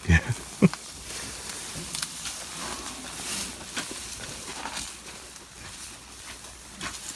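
African elephants moving through dry grass and bush close by: faint rustling and crackling of stems. A few sharp knocks come in the first second.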